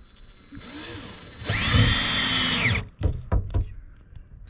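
DeWalt cordless drill/driver driving a screw to fasten the seat base down. It runs with a steady whine for over a second, winds down in pitch as it stops, and is followed by a few sharp clicks.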